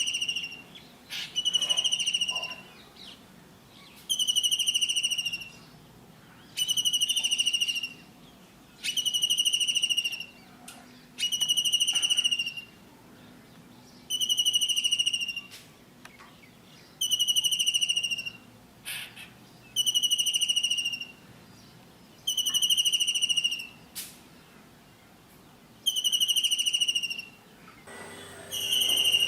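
Kingfisher calling: a shrill, high trilled call about a second long, falling slightly in pitch, repeated at an even pace every two seconds or so, a dozen times.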